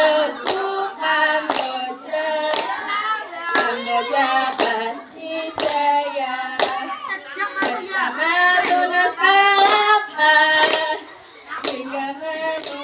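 Group of girls singing a clapping-game song together, with hand claps on a steady beat about one to two a second.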